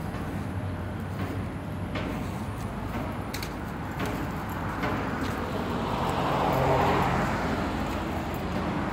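Road traffic going by, with one vehicle passing that grows louder about six to seven seconds in and then fades a little.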